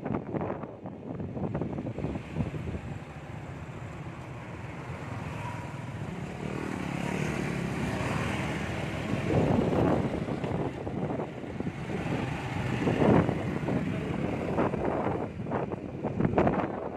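A vehicle's steady running noise, with louder swells about halfway through and again a few seconds later.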